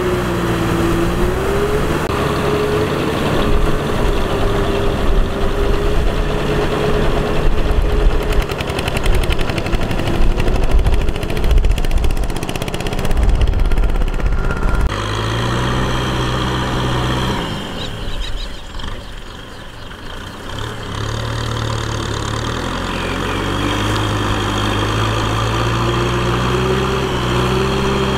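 Tractor engine running under load while it drags a rotary tiller through flooded mud, with a wavering whine over the engine note. The sound changes abruptly about halfway, drops for a couple of seconds, then the engine note climbs again toward the end.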